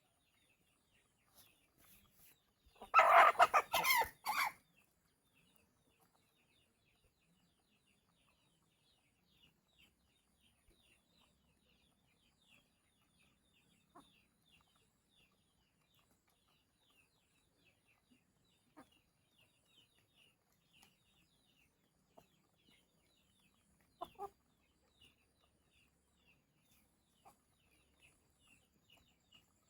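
Chickens: one loud call lasting about a second and a half about three seconds in, then a few short, faint clucks, over a constant faint high chirping.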